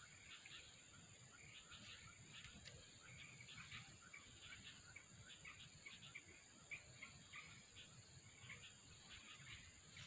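Faint outdoor ambience: a steady high insect drone with many short, faint chirps scattered throughout.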